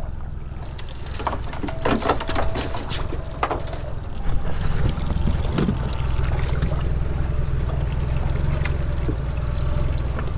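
Steady low wind rumble on the microphone with water noise around a small fiberglass boat, broken between about one and three and a half seconds in by a series of sharp knocks and clatters of gear being handled on the deck.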